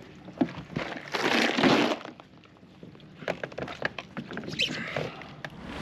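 Fishing gear handled aboard a kayak: a landing net and rod being moved, with many short clicks and knocks and a loud rush of noise lasting about a second, starting about a second in.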